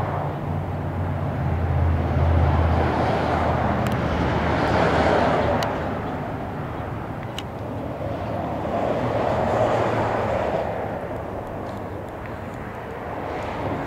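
Outdoor vehicle rumble: a steady rushing noise over a low hum, swelling about two seconds in and again near ten seconds, with a few faint clicks.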